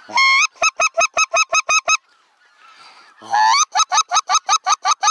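Goose honking in two loud bouts. Each bout is a drawn-out rising honk followed by a fast, even run of short clipped honks, about six a second. The second bout starts about three seconds in.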